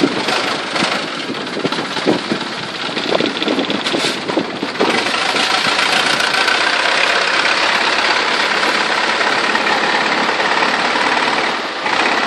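Long-tail boat's open-mounted car engine running hard to drive its long propeller shaft, a loud steady drone mixed with the rush of water and spray. It grows louder about five seconds in.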